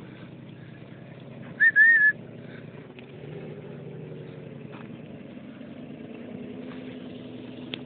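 1946 Ford Burma Jeep truck engine running steadily; about three seconds in its pitch rises slightly. About one and a half seconds in, a brief loud high whistle-like tone sounds over it for about half a second.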